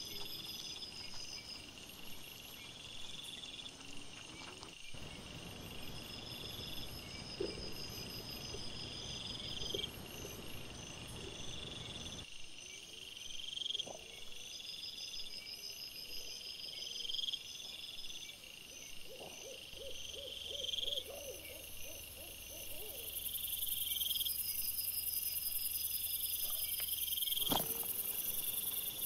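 Night insects chirping in a steady, regular rhythm, a high pulsed phrase repeating every two to three seconds. About two-thirds of the way in there is a short run of low pulsed calls, and the background noise shifts abruptly a few times where trail-camera clips are joined.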